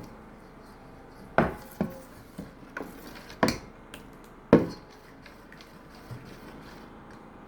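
Kitchen utensils knocking and clinking against a bowl while okpa batter is handled: a handful of separate sharp knocks over a few seconds, the last one the loudest.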